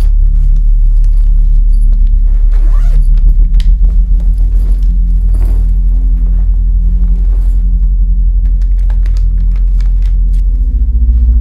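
A loud, steady low rumbling drone, the kind a film underscore uses for tension. Light rustles and small clinks of things being handled come through over it.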